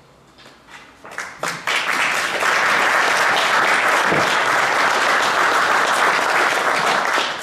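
Audience applauding: a few scattered claps build within about two seconds into dense, steady applause, which dies away just before the end.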